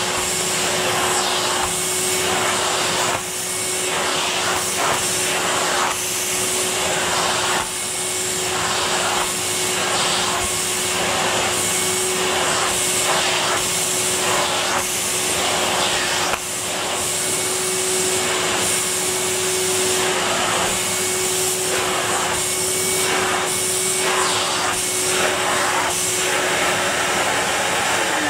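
Numatic Henry vacuum cleaner running with a steady motor whine, its rushing air noise swelling and dipping every second or two as the nozzle is worked over carpet strewn with dry leaves.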